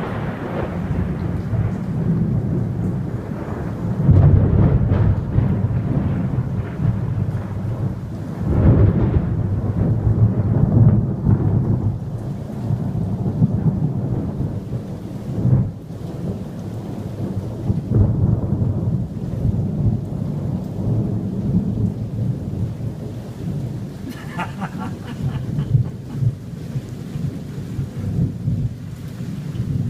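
Thunderstorm: thunder rumbling and rolling over steady rain, with loud swells of thunder about four and nine seconds in and a few sharp cracks around fifteen and eighteen seconds.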